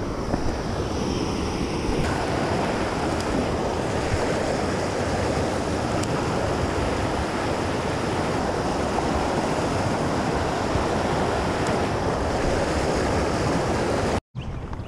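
Steady rushing of shallow river rapids over rocks. It cuts out abruptly a little before the end, then resumes more quietly.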